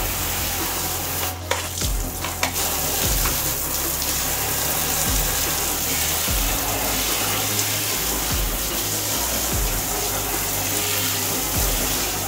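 Shower head spraying water over parts being rinsed: a steady hiss of running water.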